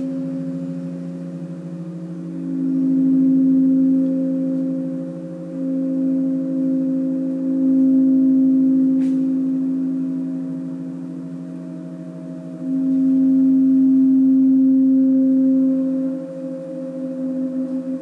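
Gong played as a sustained wash: a stack of low, pulsing tones that hum on, swelling and fading in several waves.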